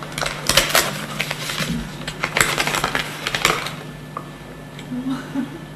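Paper envelope crackling and rustling as its flap is picked at and pried open, a quick run of sharp crinkles that dies away after about three and a half seconds.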